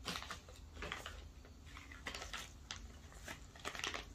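Faint crinkling and clicking from a plastic parts bag handled in gloved hands, a string of short irregular rustles.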